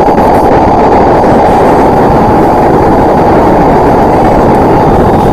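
A loud, steady, muffled rumbling roar, with nothing above a low pitch and no separate bangs, laid over explosion fireball footage.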